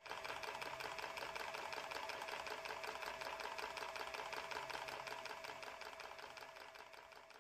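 Rapid, even mechanical clatter of a small wooden blacksmith automaton's mechanism and hammer, with a steady ringing tone underneath; it fades out near the end.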